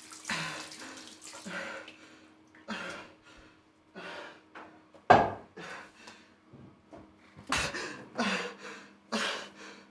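Water splashing at a bathroom sink in short bursts, mixed with a man's heavy, ragged breaths and gasps, a sign of him feeling ill; one sharp, louder splash or gasp comes about five seconds in.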